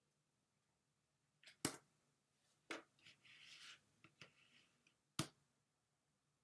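Near silence broken by three sharp clicks, the loudest about one and a half seconds in, the others about a second later and near the end, with a brief soft rustle between the second and third.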